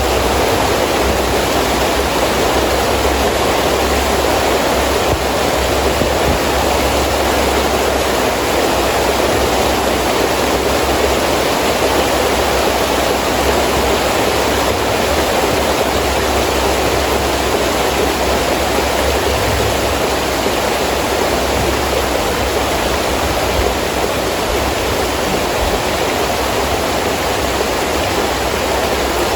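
Heavy rain falling steadily with wind, a dense even hiss with a low rumble underneath.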